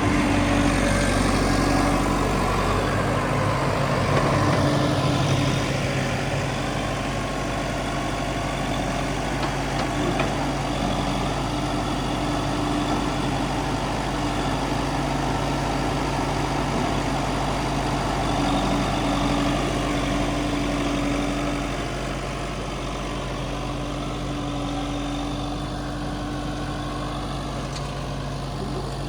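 Diesel engine of heavy machinery running steadily at low revs, a little quieter in the last third.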